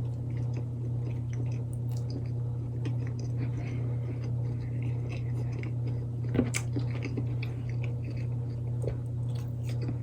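A person chewing and biting into a grilled chicken wrap in a tortilla, with small clicks of the mouth and one sharper bite about six seconds in, over a steady low hum.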